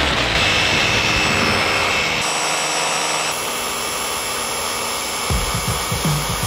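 Team Associated Apex2 Hoonitruck, a 1/10-scale electric four-wheel-drive RC truck: its motor whines at high throttle while the tyres spin on gravel and asphalt in a burnout. The sound changes abruptly about two seconds in, and low thumps join from about five seconds in.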